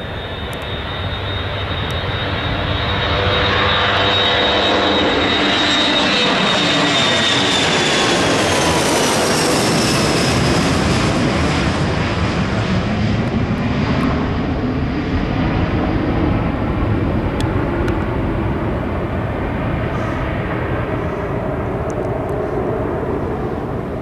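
Boeing 737-500's twin CFM56-3 turbofan engines at takeoff power as the jet lifts off, climbs and passes overhead. Their loud roar carries a high whine that glides down in pitch as the plane goes over, then slowly fades as it flies away.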